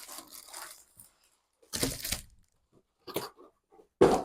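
Album packaging being handled: crinkling, rustling plastic and cardboard in short bursts with a few dull knocks, the loudest at the very end.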